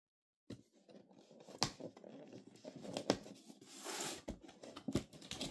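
Cardboard retail box being opened by hand: faint scraping and rustling of card as the lid flap is pulled free and the inner tray is slid out, with a few sharp clicks of card.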